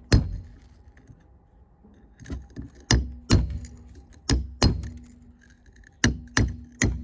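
Hammer tapping a steel blade set in the split of a Keokuk geode: about nine sharp metallic strikes, often in quick pairs, each with a brief ring. They are measured taps meant to work the crack open without shattering the large calcite crystals inside.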